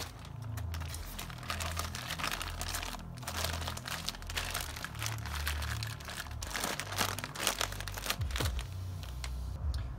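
Clear plastic Ziploc bag crinkling as it is fitted over a plastic funnel and squeezed by hand, forcing air and oil down a boat's shifter cable.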